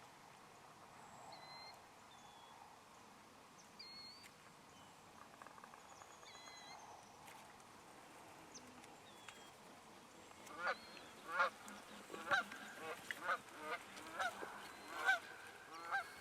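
Geese honking: a quiet stretch with a few faint high chirps, then from about ten seconds in a run of honks coming once or twice a second.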